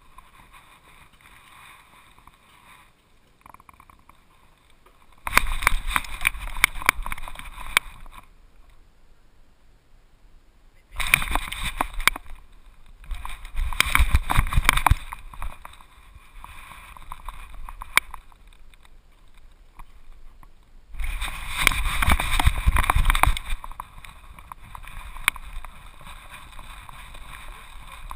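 Rubbing, scraping and knocking noise from a GoPro strapped to a golden retriever's back as the dog moves, with fur and harness rustling against the housing, in three loud bouts of a few seconds each with quieter spells between.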